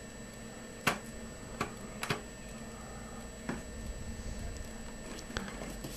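Hands handling an inflated latex modelling-balloon dog: a handful of short sharp clicks and rubs, the loudest about a second in, over quiet room noise.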